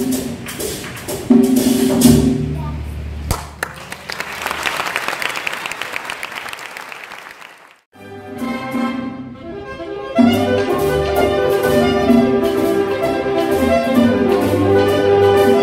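Symphony orchestra playing the closing bars, ending on a sharp final stroke about three seconds in, followed by audience applause that fades away. After a brief silence, orchestral music with strings starts again, growing fuller about ten seconds in.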